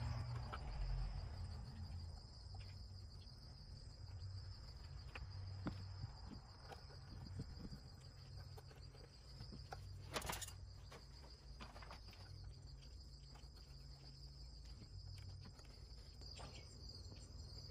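Insects trilling steadily at one high pitch, with faint clicks and rustles of wires and plastic wire nuts being twisted together by hand, and a slightly louder short knock about ten seconds in.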